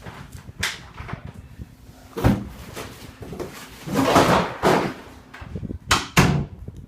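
A door being shut and locked, with several separate knocks and thuds and a stretch of rustling around them.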